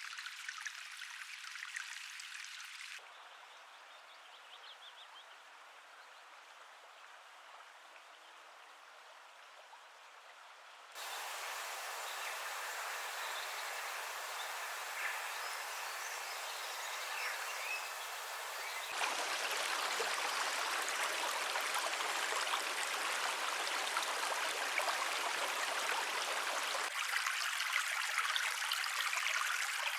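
Running water from streams, a series of separate recordings that switch abruptly about every eight seconds, some quieter and thinner and others louder and fuller. A few faint bird chirps come through in the quieter stretches.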